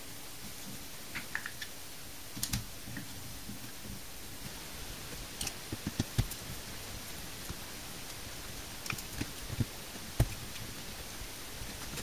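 Scattered light clicks and taps of hands handling a rubber-cased Bluetooth speaker and working a small Allen key at the screws in its sides, in irregular clusters.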